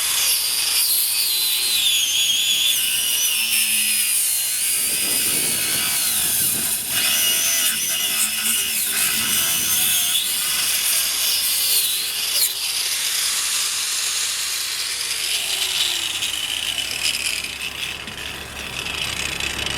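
Craftsman angle grinder with a cut-off wheel running continuously as it cuts through a car tire's rubber. Its high whine wavers up and down as the wheel bites into the rubber and eases off.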